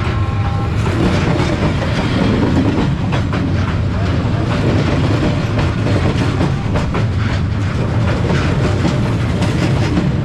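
A train passes at very close range. It makes a steady heavy rumble, with the wheels clicking and clattering over the rails throughout.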